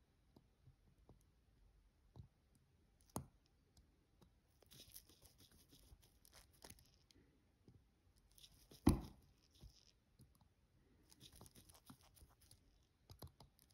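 Faint clicks and light scratching of a watchmaker's screwdriver and tweezers on a watch movement as the crown wheel screws are driven in. There is a sharper click about 3 s in and a louder tap about 9 s in.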